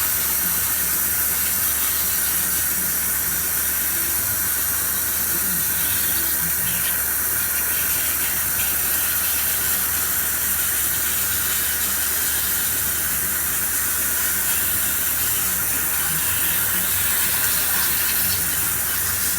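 Steady hiss of water spraying at a CNC machine cutting 316 stainless steel, continuous and even throughout.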